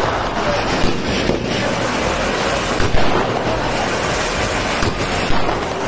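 Ground fountain fireworks (anar) spraying sparks with a steady loud hiss, with a few sharp pops about one, three and five seconds in.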